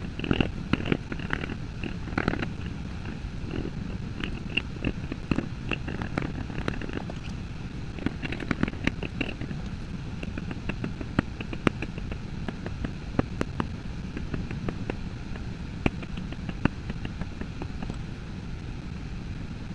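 Leather stamping tools from a basic 7-piece set being struck with a mallet on a strip of leather: a quick, irregular run of sharp taps over a low, steady rumble.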